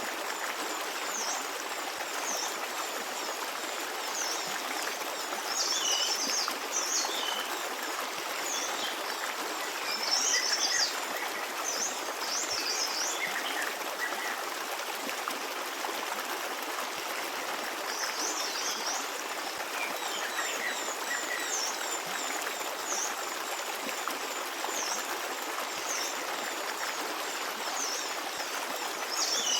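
Forest stream running and babbling steadily, with small birds chirping over it in short, high chirps that come in several brief clusters.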